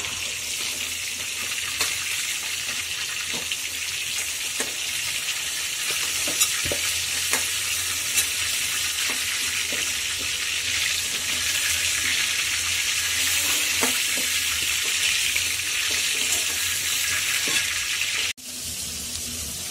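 Chicken pieces sizzling as they fry in hot oil in a metal wok, with a metal utensil clicking and scraping against the pan as the pieces are turned and lifted out. The sizzling drops abruptly in level near the end.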